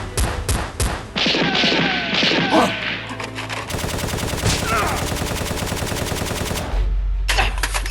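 Gunfire: scattered shots in the first few seconds, then a long burst of very fast automatic fire through the middle.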